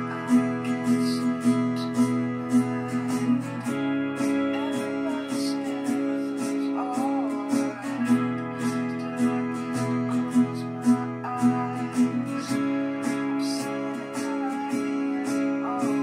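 Acoustic guitar strummed in a steady rhythm, the chords changing every few seconds.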